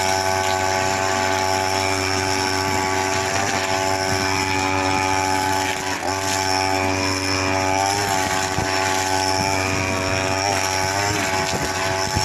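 Petrol two-stroke brush cutter running at high, steady speed, its 3 mm nylon line cutting grass and weeds. The engine pitch dips briefly several times under load.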